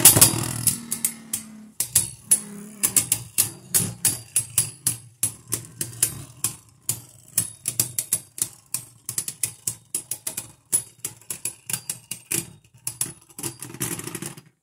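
Two Beyblade Burst spinning tops, Hydra Kerbeus and Fierce Bazalisk, battling in a plastic stadium: they clack together in quick, irregular hits, several a second, over a low steady hum. The clashing dies away just before the end.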